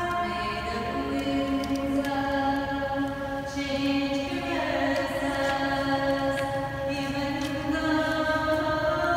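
Background music: slow sustained choral voices holding chords that change every second or two.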